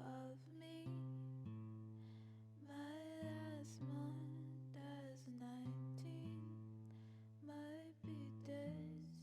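A slow song sung by a single voice over acoustic guitar chords, with the last chord left ringing near the end.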